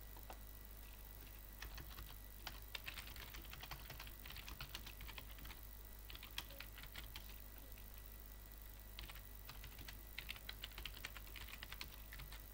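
Computer keyboard typing: quick runs of keystrokes, with a pause of a couple of seconds in the middle, over a faint low steady hum.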